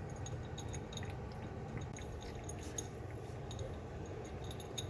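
A cat missing half of her lower jaw eating dry kibble from a plate, with faint scattered clicks as the bits knock against the dish, over a low steady room hum.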